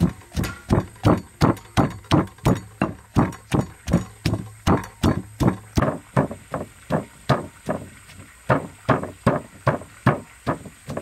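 Stone pestle pounding red chilies and garlic in a stone mortar: a steady run of dull thuds, about three a second.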